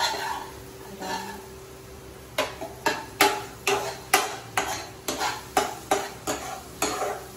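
A spatula stirring and scraping frying vegetables in a wok. It is fairly quiet at first, then from about two seconds in it becomes a steady run of sharp strokes against the pan, about two a second.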